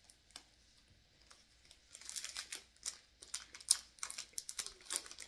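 Plastic granola bar wrapper crinkling as it is torn open by hand: a few faint crackles at first, then a dense run of crinkling from about two seconds in.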